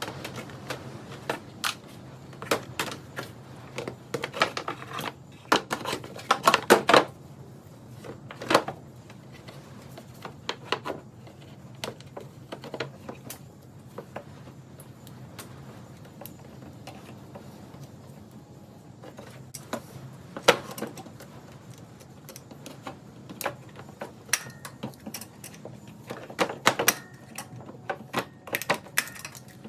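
Rapid, scattered metallic clicks and clatters of hand tools working on the truck's engine, bunched in runs near the start and again in the last third, over a steady low hum.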